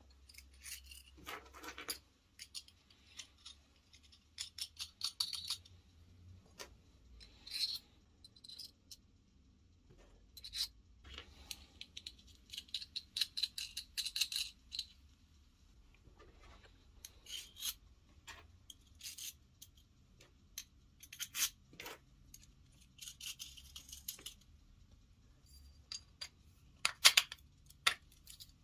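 Small steel parts (M8 bolts, nuts and ball bearings) clicking and clinking as they are handled and fitted into short pieces of square steel tube. Scattered clicks come with a few short stretches of scratchy rattling, and the sharpest clicks come near the end.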